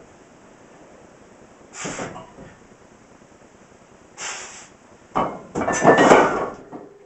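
Man's short, forceful exhales during overhead-press reps with a loaded barbell, twice, then a longer, louder burst of breath with knocks from the bar and plates as it comes down to his shoulders near the end.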